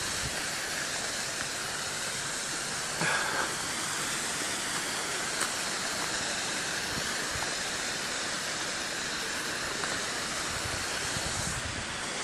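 A steady, even hiss, with a short knock about three seconds in and a faint tick a couple of seconds later.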